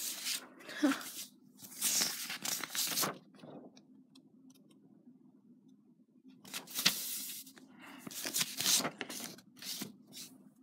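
Sheets of paper rustling and sliding as they are handled, in several short bursts with quiet gaps between.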